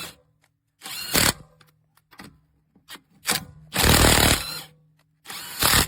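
Cordless 850 N·m impact wrench hammering in three short bursts, about a second in, about four seconds in and near the end, as it loosens nuts on a car that has stood unused for a year.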